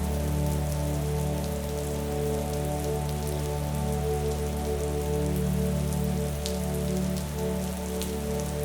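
Steady rain with scattered drop ticks, over a low held chord of soft background music that shifts slightly about halfway through.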